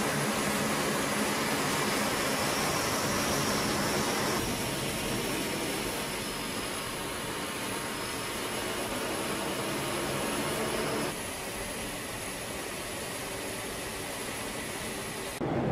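Lockheed KC-130J Hercules's turboprop engine running, with its six-bladed propeller turning. About four seconds in, this gives way to the quieter, steady engine drone inside the flight deck in flight, with a faint high whine that slowly falls.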